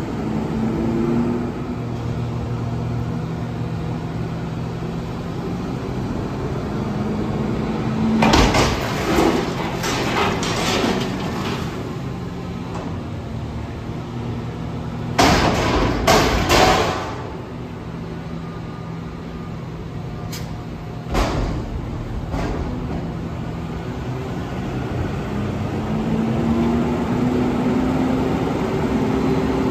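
Front-end loader garbage truck's diesel engine running under hydraulic load as its forks raise a dumpster over the cab. Two spells of loud banging, about 8 and 15 seconds in, as the bin is tipped and shaken into the hopper, then two sharp knocks; near the end the engine note rises as the hydraulics work again.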